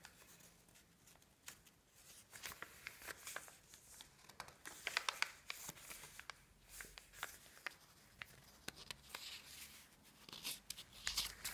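Paper pages and tags of a handmade junk-journal insert rustling and crinkling as they are handled and turned, with many small irregular clicks and taps.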